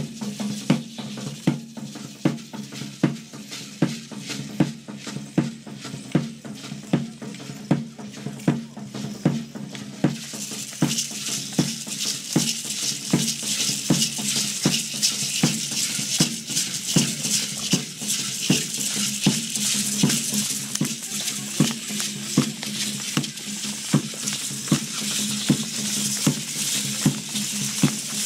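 Dance drum beating a steady pulse about twice a second, with rattles shaking along with it. The rattling grows much louder about ten seconds in.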